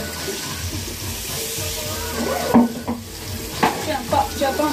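Food sizzling in a frying pan as it is stirred. A utensil strikes the pan sharply twice, about two and a half and three and a half seconds in, followed by a few lighter knocks.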